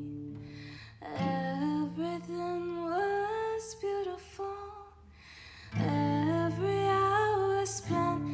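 A woman singing a slow melody over a strummed acoustic guitar. A chord rings out about a second in under a sung phrase and fades, then a new chord and phrase begin past the middle.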